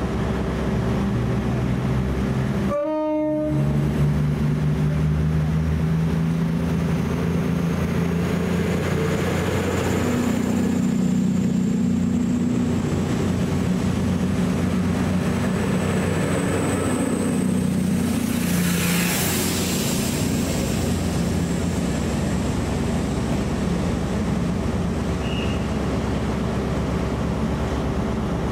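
A train running through the station: a continuous low drone with pitched engine or traction-motor tones that shift in pitch, and a faint high whine slowly rising over several seconds. There is a brief gap in the sound about three seconds in.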